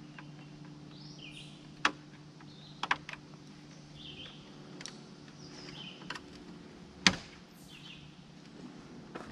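Sharp clicks and snaps of a screwdriver working the plastic-mounted metal retaining clips of a truck grille, a few in all with a double click about three seconds in and the loudest near seven seconds, while birds chirp in the background.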